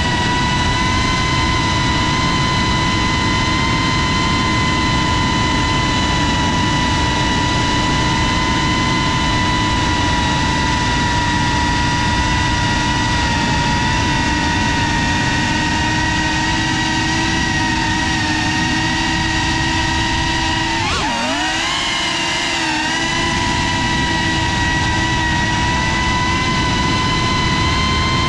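FPV quadcopter's electric motors and propellers whining steadily at a high pitch, picked up by the onboard GoPro. About three quarters of the way through, the pitch dips sharply and climbs back within a couple of seconds.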